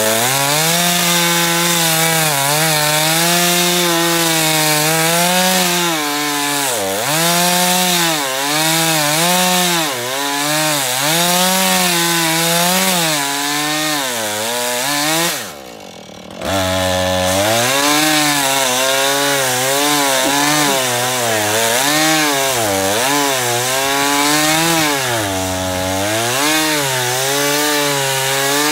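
Husqvarna two-stroke chainsaw cutting through a large log, its engine pitch dipping and recovering again and again as the chain bogs under load. About halfway through, the sound drops away for about a second, then comes back at full speed.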